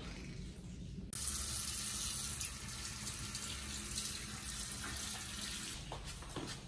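Tap running into a bathroom sink: a steady hiss of water that starts suddenly about a second in and stops near the end.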